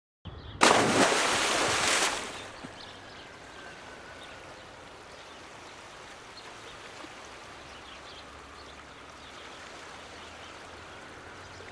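A loud rushing burst of noise lasting about a second and a half near the start, then steady flowing water of a river or stream.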